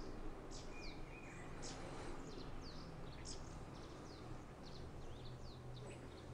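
Birds chirping faintly: many short, quick downward-sliding high notes scattered throughout, over a faint steady low hum.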